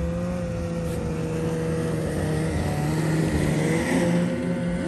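Snowmobiles running along the trail: a steady engine drone whose pitch sags slightly over the first couple of seconds, then a second machine's note rising about three and a half seconds in.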